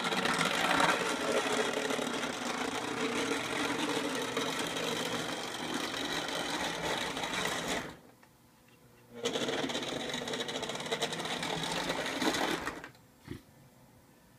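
Lionel 8404 PRR steam turbine model locomotive running on tinplate track: a steady whirring of its electric motor and gears with the rumble of its wheels on the rails. It stops about 8 seconds in, starts again about a second later, and stops a second or so before the end.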